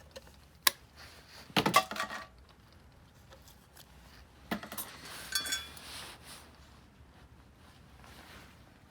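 Metal tool clinking and knocking against engine parts: a single sharp click, then a loud cluster of ringing clinks about a second and a half in, and another ringing cluster around the middle.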